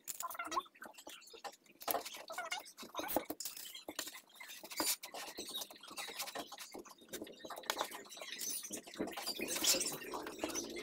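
Stiff woven aso-oke fabric rustling and scratching as hands smooth, fold and pinch it flat against a table, in many short irregular strokes.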